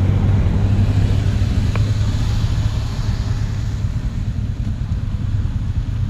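Motorcycle engine running at low speed under wind and road noise, a steady low drone that eases off a little after about three seconds as the bike slows.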